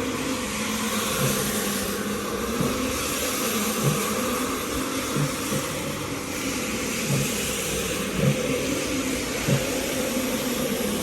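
A motor-driven rug-cleaning machine running steadily, with a low knock about every second or so.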